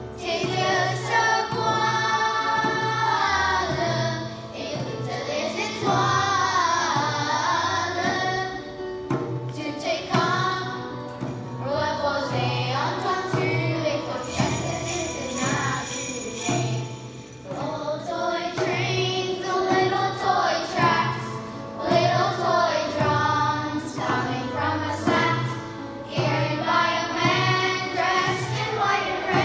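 A children's choir singing a Christmas song over an instrumental accompaniment with a steady beat, with jingle bells ringing along.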